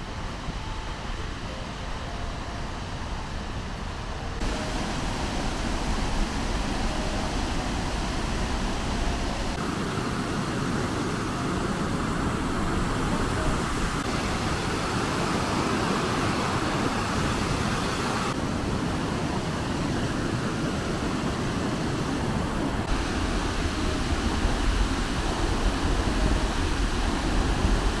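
Muradiye Waterfall running in spate with snowmelt: a steady rush of falling water. It steps up in level about four seconds in and shifts in tone several times.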